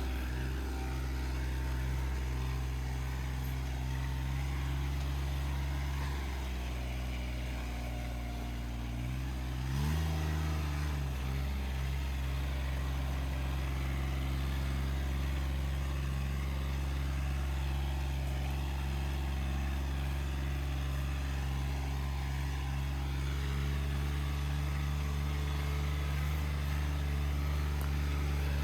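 An engine running steadily, revving up about ten seconds in and holding at the higher speed.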